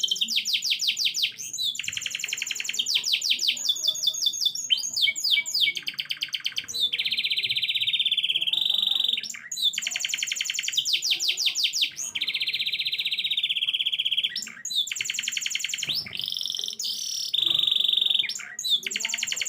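Domestic canary in full song: fast trills of quickly repeated notes alternating with long, low rolling phrases, with only short breaks between phrases.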